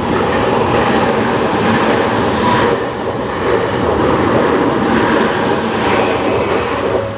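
Tokyu Toyoko Line train passing through a level crossing: a loud, steady rush of wheels on the rails. The crossing's warning bell rings faintly underneath.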